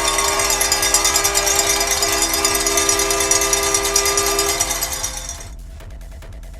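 Hockey arena goal horn blowing a steady chord for about four and a half seconds to celebrate a goal, over a fast metallic rattle of cowbells. Both die away about five and a half seconds in.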